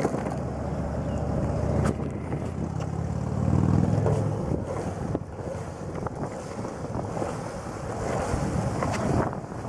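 Longboard wheels rolling on asphalt with wind buffeting the microphone. The rumble swells around three to four seconds in, and a few sharp clicks come through.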